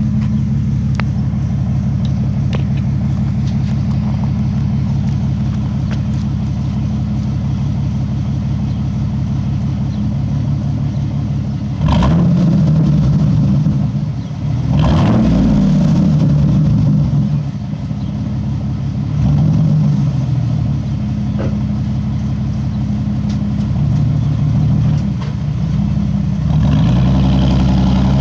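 2006 Chevrolet Silverado's 4.3-litre V6 running through a glasspack muffler. It idles steadily for about twelve seconds, then is revved several times, each rev rising and falling over a second or two.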